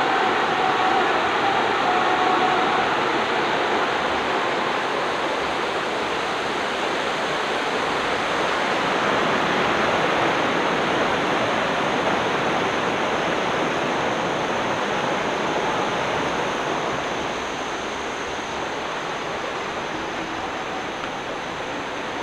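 Steady rush of a shallow rocky river tumbling over boulders, a little fainter after about seventeen seconds.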